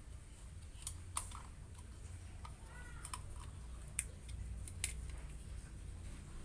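Sharp plastic clicks and knocks of an action camera in its clear housing being handled and fitted onto a scope camera mount, a handful of separate clicks over a low steady hum.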